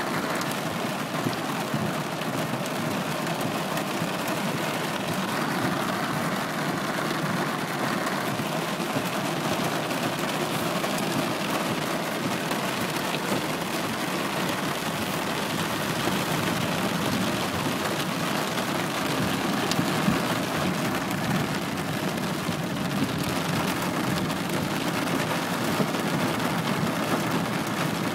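Heavy downpour: steady, dense rain noise, with a vehicle's engine and tyre noise mixed in.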